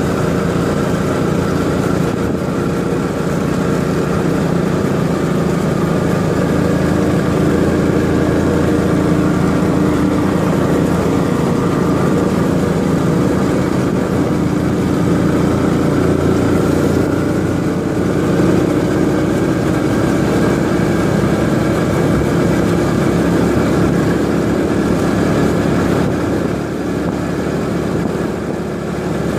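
Small motor scooter engine running steadily while riding, pulling up a curving uphill road.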